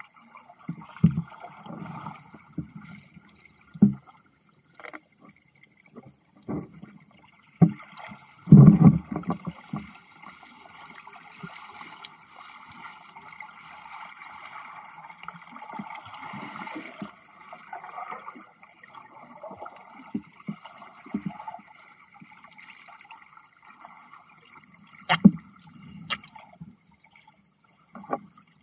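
Muffled underwater sound heard through a camera's waterproof dive housing: water sloshing and bubbling, with irregular low thuds and a few sharp knocks, the loudest about nine seconds in.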